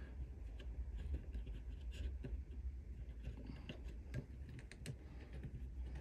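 Faint, irregular small clicks and scrapes of a hex key turning a small screw into the metal frame of a resin-printer vat, tightening it down to clamp the FEP film taut.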